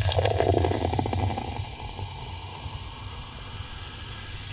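Soda pouring in a thin stream from a small plastic bottle into a glass mug full of ice. It splashes loudest in the first second or so, then settles to a softer steady hiss, with a low steady rumble underneath.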